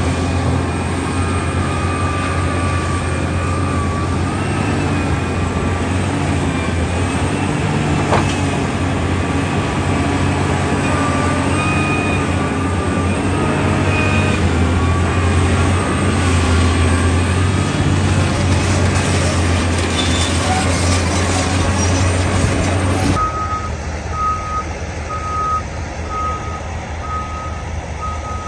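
Heavy construction machine's diesel engine running steadily, with a whine that wavers in pitch. About 23 seconds in, the sound changes abruptly to a quieter engine under a reversing alarm beeping a little faster than once a second.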